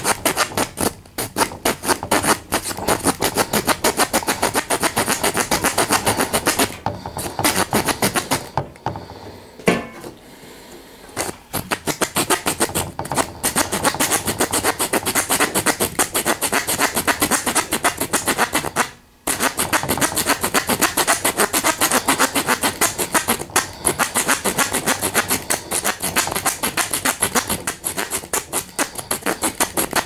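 Leatherman Blast multi-tool's folding saw blade cutting through a scrap wood board in rapid back-and-forth strokes. The sawing pauses for a few seconds about a third of the way in and breaks off briefly a little past halfway.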